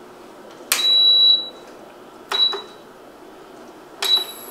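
Portable electric cooktop's control panel beeping as it is switched on and set to high heat: one longer beep about a second in, then two short beeps, each about a second and a half after the one before.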